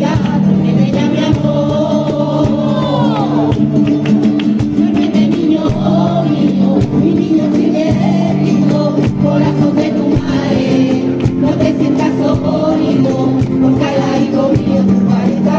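Andalusian-style choir of mostly women's voices singing a Christmas song together, accompanied by two strummed Spanish acoustic guitars and rhythmic hand clapping.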